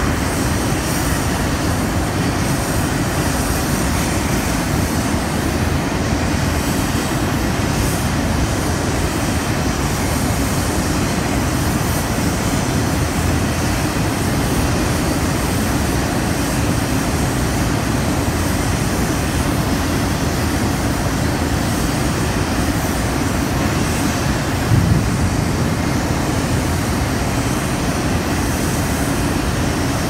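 A blast furnace tap hole being opened by machine, flame and sparks spraying from the hole, makes a loud, steady roar with a deep rumble and no clear pitch or rhythm. A short knock sounds about 25 seconds in.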